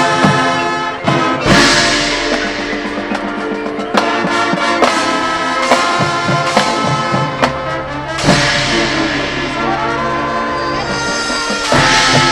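Marching band playing: brass holding loud, full chords over drums, with cymbal crashes about a second and a half in, at about eight seconds, and again near the end.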